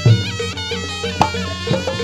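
Javanese folk accompaniment for barongan and reog dancing: a reedy trumpet-like wind instrument plays a wavering, ornamented melody over regular drum strokes and a steady low tone.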